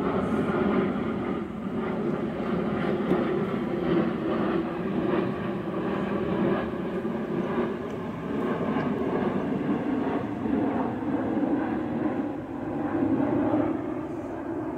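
Jet airliner flying low overhead, its engines giving a steady, rumbling noise.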